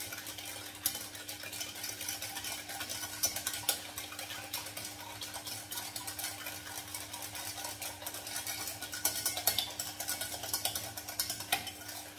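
Wire whisk beating an egg, sugar and cornstarch mixture in a small stainless steel saucepan: rapid, irregular clicking and scraping of the tines against the metal, over a steady faint hum.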